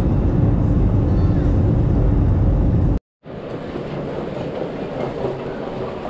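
Steady low rumble of a jet airliner's engines heard from inside the cabin. About three seconds in it cuts off abruptly, giving way to the quieter, even background noise of an airport terminal corridor.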